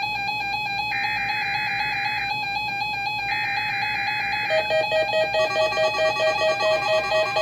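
NOAA Weather Radio alert tones for a Required Weekly Test: two more buzzy SAME digital header bursts, each about a second long, over a steady tone. From about two-thirds of the way through, a pulsing electronic alarm of several tones takes over, about three pulses a second.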